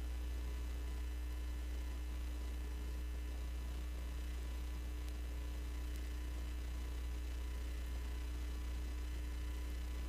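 A steady low electrical hum with a faint hiss behind it.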